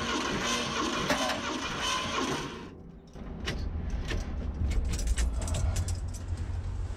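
Starter cranking the Ford 460 big-block V8 with its spark plugs out, turning the engine over for a compression reading on cylinder 5. The cranking stops about two and a half seconds in, and scattered light clicks and a low rumble follow.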